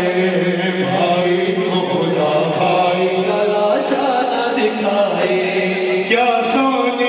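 Male voice reciting a noha, a Shia lament, chanted in long held melodic notes that shift pitch a few times.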